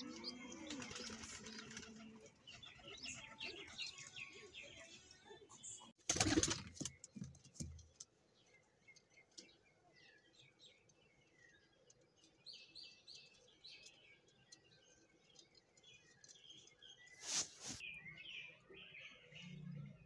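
Young pigeon squabs giving many short, high squeaking chirps in quick runs. Two brief loud rustling bursts come about six seconds in and again near the end.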